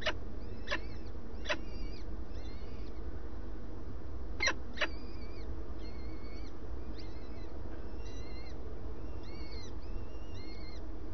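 Peregrine falcon chicks' begging calls at the nest: thin, arched high peeps repeated about twice a second, with a few sharper, louder chirps in the first two seconds and twice about four and a half seconds in. A steady low hum runs underneath.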